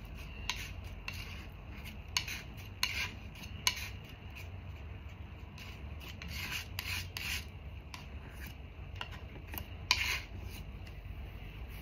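Oil paint being mixed on a palette: irregular short, quiet scraping and rubbing strokes, the strongest about ten seconds in, as a skin tone is divided and worked with white into a lighter shade.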